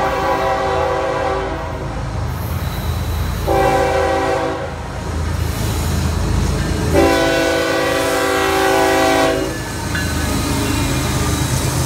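Freight locomotive air horn sounding a chord of several steady tones in the grade-crossing pattern: the tail of a long blast, a short blast about three and a half seconds in, then a long blast of about two and a half seconds. The lead GE ES44C4 diesel rumbles underneath and rolls past near the end.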